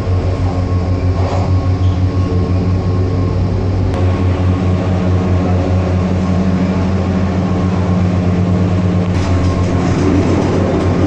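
Gondola cableway cabin running along its cable, a steady mechanical hum and rumble of the cabin and its machinery, with a brief knock about four seconds in.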